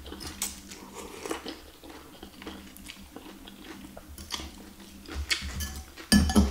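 A person eating bakso noodles and meatballs: slurping and chewing with small wet mouth clicks, then a louder clink of fork and spoon against the glass bowl near the end.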